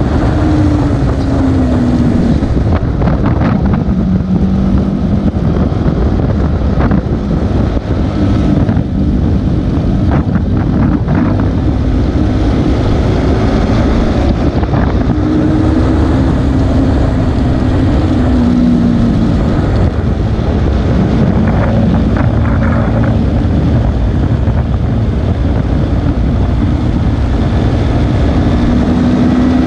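KTM RC 390's single-cylinder engine running hard at speed, its pitch rising and falling again and again as it revs through the gears, with heavy wind noise on the microphone.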